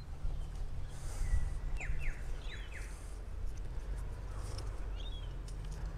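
Birds calling outdoors: a quick run of short falling chirps about two seconds in and a couple more near the end, over a steady low background rumble.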